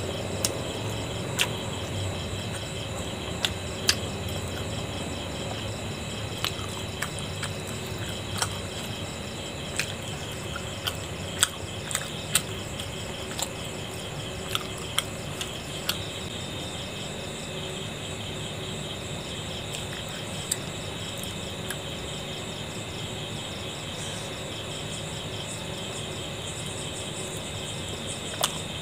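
Insects chirring steadily, with scattered sharp clicks mostly in the first half.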